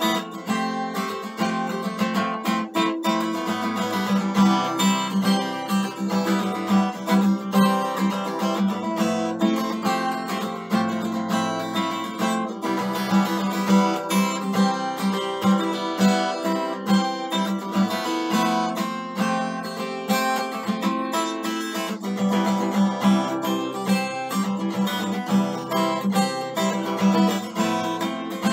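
Acoustic guitar being strummed, chords ringing on without a break.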